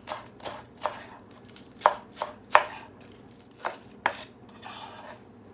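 Kitchen knife chopping green onions on a round wooden cutting board: about eight sharp knife strikes at uneven intervals, some in quick pairs or threes.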